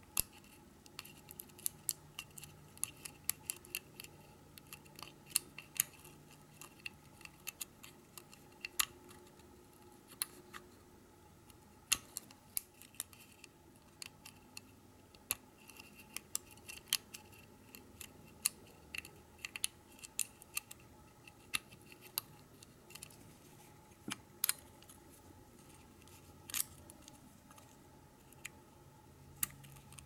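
Steel hook pick clicking and scraping on the pins inside a Chateau C970 disc padlock's keyway, held under a tension wrench as the pins are lifted one by one. The clicks are small, sharp and irregular, several a second at times, with short pauses between.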